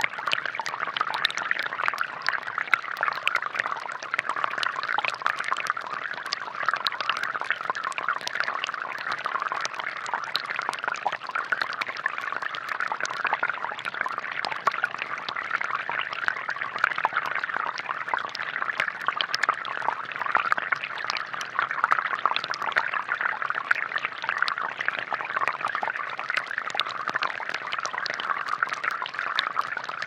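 Thin jets of water from a homemade plastic-bottle fountain falling onto wet stones in a plastic tray: a steady splashing made of many small drops.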